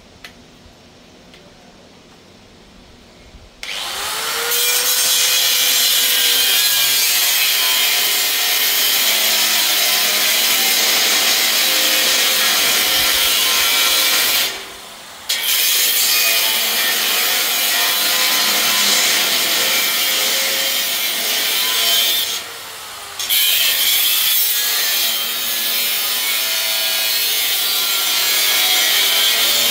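Electric angle grinder starting up about four seconds in, then cutting along the edge of a steel sheet with a loud, harsh, steady noise. The noise drops away briefly twice, near the middle and about three-quarters through, before the disc bites again.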